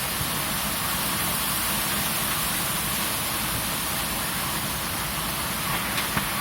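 Storm wind and heavy rain: a steady rushing noise with wind rumbling on the microphone, and a couple of faint ticks near the end.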